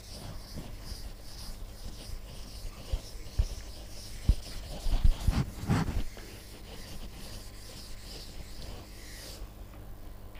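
Chalkboard duster wiping chalk off a chalkboard in repeated strokes, a scratchy rubbing about twice a second that stops near the end. A few dull thumps come about halfway through and are the loudest sounds.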